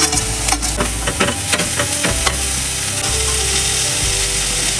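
Steel ladle clinking and scraping against a steel kadhai as chopped vegetables are stir-fried in oil, over a steady sizzle. The clinks come thick in the first two seconds or so, then the sizzle carries on more evenly.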